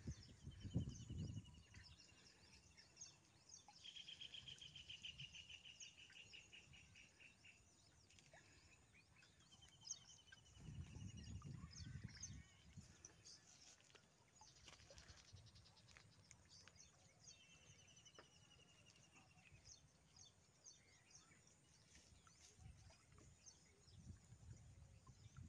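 Faint outdoor quiet with a bird's high, slightly falling trill, heard four times, the second the longest and loudest. Low rumbles near the start and again about eleven seconds in.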